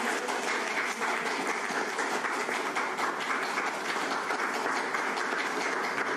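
Steady applause from a room of onlookers.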